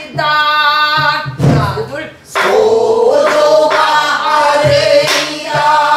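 Women singing a pansori phrase together in long, held lines, with a short break about two seconds in. A few strokes on buk barrel drums mark the beat.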